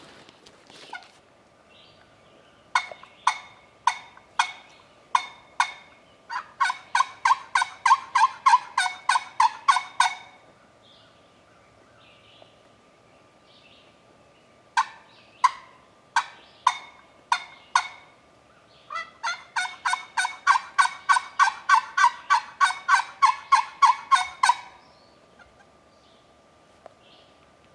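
Turkey yelping in two runs of sharp, evenly spaced yelps. Each run starts slowly, quickens to about four yelps a second, then stops. The second run begins about halfway through.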